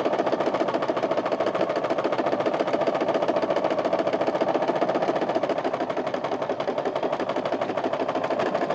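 Singer electric sewing machine running steadily at speed, stitching a long straight seam with a fast, even rhythm.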